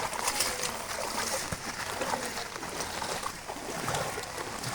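Floodwater flowing, a steady rushing noise.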